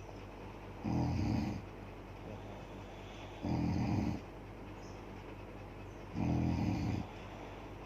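A woman snoring in a steady rhythm: three snores about two and a half seconds apart, each lasting under a second.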